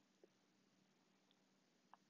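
Near silence: room tone with a faint hum, broken by two tiny ticks, one just after the start and one near the end.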